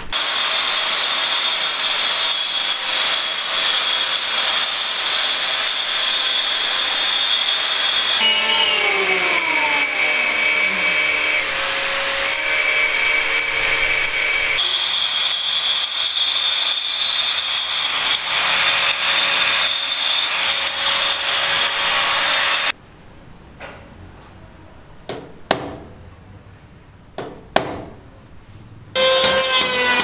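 Power tools running loud: an angle grinder cutting into a concrete floor, with a falling pitch around nine seconds as a motor winds down. Then a quieter stretch with a few sharp knocks, and an electric chainsaw starts cutting timber near the end.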